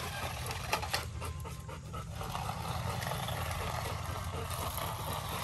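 A Labrador retriever puppy panting, with a few light clicks about a second in.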